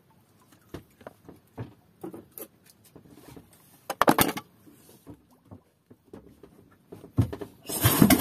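Scattered knocks and clatter of a pull-start rope and its wooden handle being readied on an 18 hp diesel boat engine. Near the end the rope is pulled and the engine starts, with a loud, rough, continuous noise.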